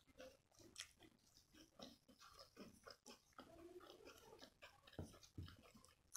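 Faint close-up eating sounds: soft chewing and mouth clicks, with fingers tearing paratha and working palak paneer on the plate, in many small irregular clicks.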